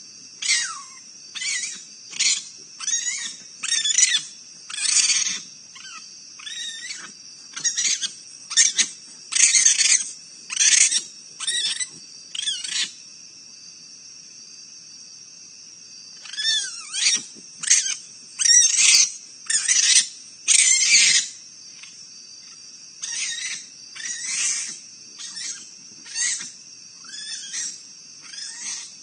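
Raccoons fighting: a long run of short, shrill screeches, a few of them sliding down in pitch. The screeches come in three bouts with brief pauses between them, and the last bout is quieter.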